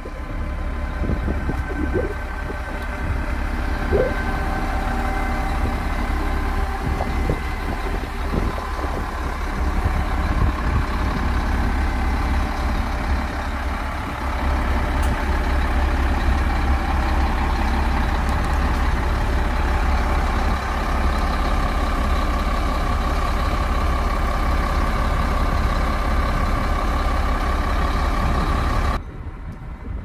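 Diesel engines of heavy earthmoving machines (wheel loaders and a crawler bulldozer) running steadily, with a low rumble, dropping off abruptly near the end.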